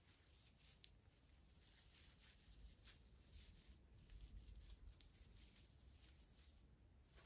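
Near silence: quiet room tone with a few faint soft clicks and light handling noises.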